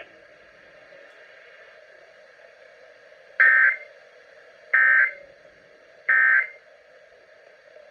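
NOAA Weather Radio EAS (SAME) end-of-message data bursts: three short, buzzy digital tone bursts, each about a second and a third apart, over faint radio hiss. They mark the end of the alert message.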